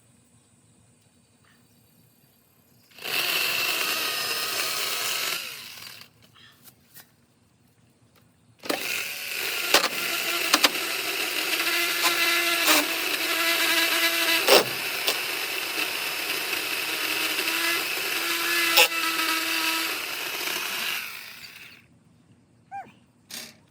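Ryobi 18-volt cordless chainsaw's electric motor and chain running with a steady whine: a short burst of about two and a half seconds, then after a pause a long run of about twelve seconds with several sharp cracks, winding down near the end.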